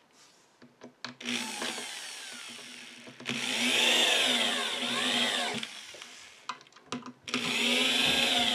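Cordless drill/driver driving wood screws into a particle-board drawer bottom, its motor whirring in three runs with short pauses between them and its pitch rising and falling.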